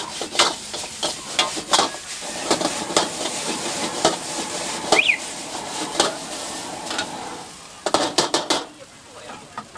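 Noodles sizzling in hot oil in a wok while a metal wok ladle scrapes and clanks against the pan, tossing them. A quick run of clanks comes near the end, after which the sizzle drops.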